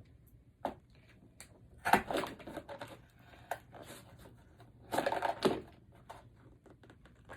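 Toy blind-box packaging being handled and opened by hand: crinkling and crackling with sharp clicks in several short bursts, the loudest about two seconds in and again about five seconds in.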